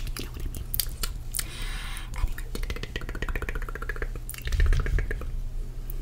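Close-miked ASMR mouth sounds: wet clicks and smacks with breathy, wordless whispering, including a run of rapid ticking clicks. A brief low rumble hits the microphone about three-quarters of the way through.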